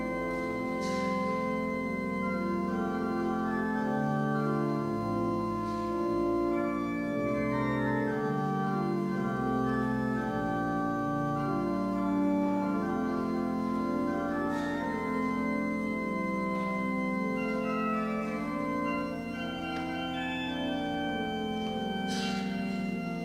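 Church organ playing slow, sustained chords in a quiet instrumental piece, the chords changing every second or two.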